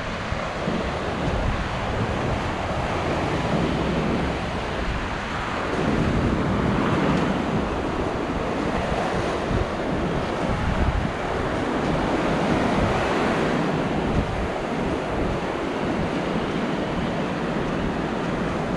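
Sea surf breaking and washing up the beach in repeated swells, with wind buffeting the microphone as a low rumble.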